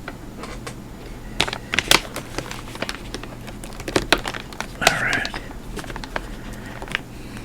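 Irregular small clicks, ticks and crinkling from handling computer parts, a RAM chip and its expansion card being worked by hand, with a short hissy burst about five seconds in.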